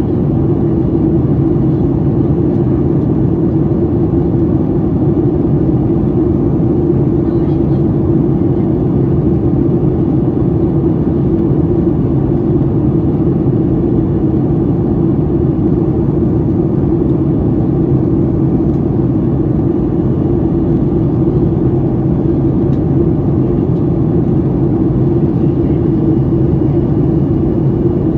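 Steady cabin noise inside a Boeing 737 MAX 8 airliner in flight, the engine and airflow drone heard from a window seat over the wing during descent. It is a deep, even rush with a steady hum and little hiss on top, and it does not change throughout.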